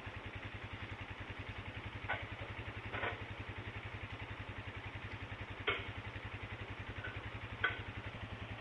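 A small engine idling steadily with a fast, even pulse, with a few short clicks over it.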